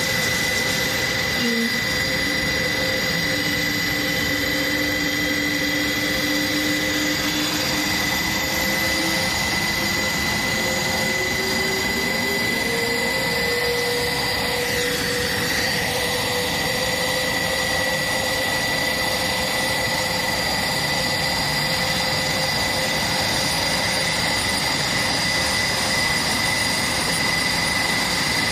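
Airbus A400M's Europrop TP400 turboprop engines running loudly, with a steady high whine, while one tone climbs in pitch from about three seconds in to about fourteen seconds in as an engine spools up during start-up.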